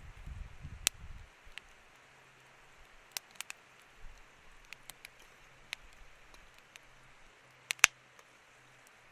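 Scattered small sharp clicks and taps over a quiet background, with a low rumble in the first second or so and a loud double click near the end.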